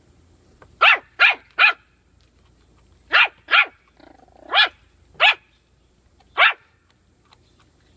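Yorkshire terrier puppy giving eight short, high-pitched barks: three in quick succession about a second in, then two more, then three spaced singles. They are play barks at another puppy that is holding a bully stick.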